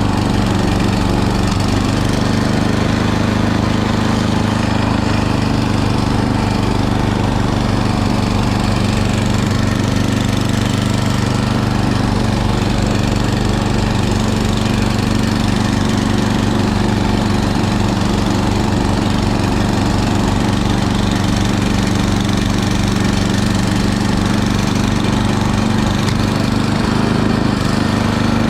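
Small gasoline engine running steadily at constant speed, most likely a snowblower clearing snow.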